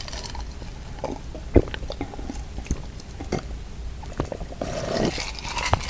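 A person chewing food with wet mouth clicks and small sharp smacks scattered throughout.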